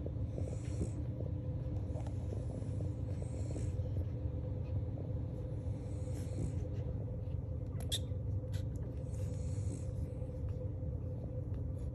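Week-old French bulldog puppies nursing: small wet suckling and smacking clicks, with soft breathy hisses every couple of seconds, over a steady low hum.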